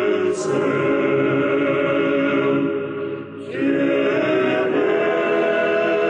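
Background music of a choir singing held chords; the sound dips briefly about halfway through and a new chord begins.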